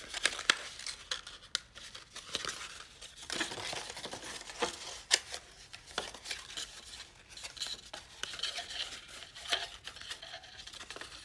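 Hands folding and creasing scored cardstock, the paper rustling with irregular sharp crackles and clicks as the folds are pressed.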